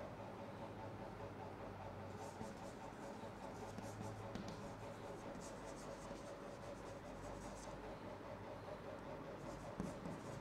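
Chalk scratching on a chalkboard as words and numbers are written, in faint runs of strokes with short pauses between them, over a steady low room hum.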